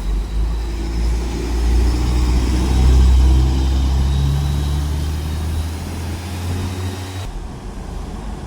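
Coach bus's diesel engine pulling past, rising in pitch and loudest about three seconds in, then fading. The sound changes abruptly near the end to a quieter rumble.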